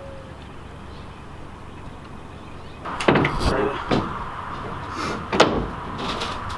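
Several sharp metallic knocks and clunks of someone moving about in an aluminum boat with a diamond-plate deck on its trailer, starting about three seconds in, over a quiet steady background.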